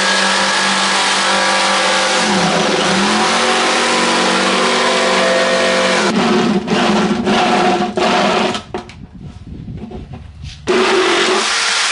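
Electric power tool motor running while cutting a round hole in a plastic cooler, its pitch dipping under load. It runs steadily for most of the time, stops and starts in short bursts, then runs hard again briefly near the end.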